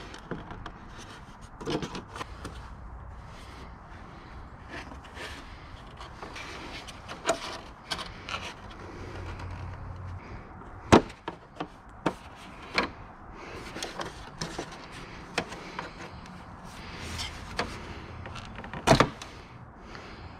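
Scattered clicks, knocks and rubbing as a hard plastic Gold Wing body panel is handled and small fittings are worked out of it. Two sharp knocks stand out, one about eleven seconds in and one near the end.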